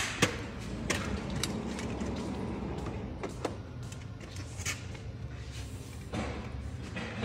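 A slat wall display frame's top bar being lifted and fitted onto the uprights, giving a scatter of light clicks and knocks, most of them in the first few seconds, over a steady low hum.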